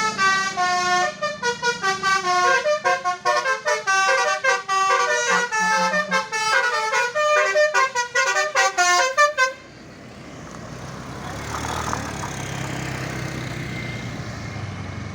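Tour bus 'telolet' musical horn playing a quick tune of stepped notes for about nine seconds, then stopping abruptly. Engine and road noise from the bus remain after it.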